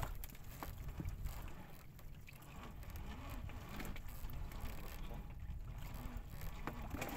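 Wind rumbling on the microphone aboard a small boat at sea, with water sloshing and scattered light knocks and clicks while a trap line is hauled in by hand.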